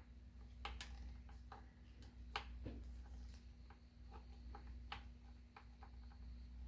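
Faint, irregular clicks of a hand screwdriver slowly working out a screw that holds a car door speaker to its bracket.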